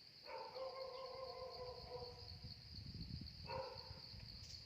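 Insects chirring steadily at a high pitch. A long, steady-pitched call is held for about three seconds, then comes twice more briefly near the end.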